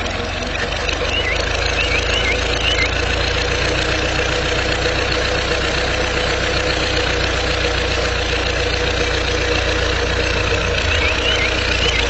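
Toy tractor's drive running steadily with an engine-like idling hum as it turns a belt pulley through its power take-off shaft.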